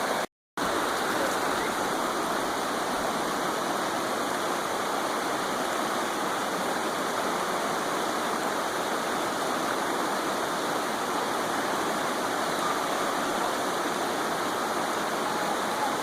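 Creek water rushing steadily over rocks, an even splashing hiss, broken by a split-second gap just after the start.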